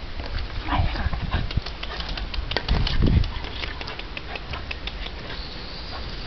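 A small dog making a few short vocal sounds while playing, the loudest about three seconds in, amid many quick sharp clicks and rumbling handling noise.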